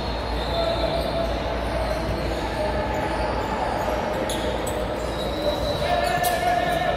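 Basketball game on a hardwood court in a large echoing hall: balls bouncing and a few sharp knocks over steady crowd chatter.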